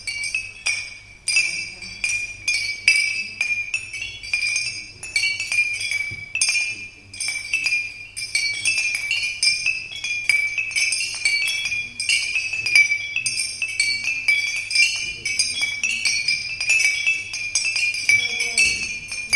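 Glassy chimes jingling continuously: many quick, light, irregular strikes, each ringing at the same high pitch. Used as the sound effect for the first rays of sunrise.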